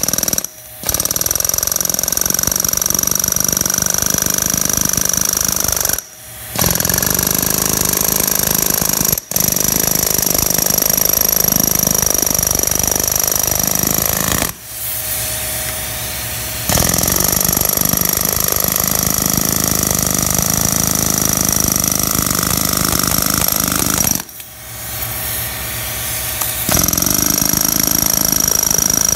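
Pneumatic air hammer with a long chisel bit running in long bursts of several seconds, with short pauses between, as it splits an old Schedule 40 pipe form set in a concrete floor.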